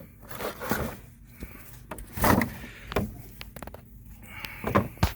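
Scraping and rustling, with a few sharp plastic clicks, as the dirty old cabin air filter is pulled out of its housing behind the glovebox.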